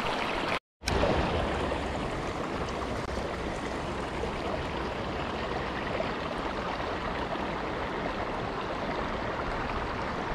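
Steady rush of a shallow creek running over rocks and riffles. It drops out completely for a split second just under a second in.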